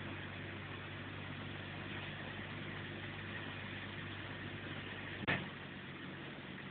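Vehicle engine running steadily, heard from inside the cabin, with one short sharp sound about five seconds in.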